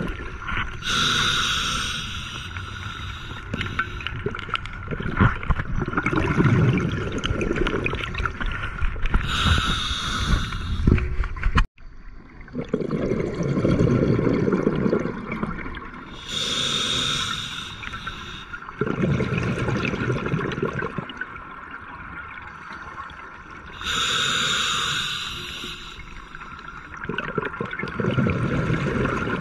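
Scuba diver breathing through a regulator underwater: a hissing inhalation alternating with a longer burst of bubbling exhalation, about every seven to eight seconds, four breaths in all.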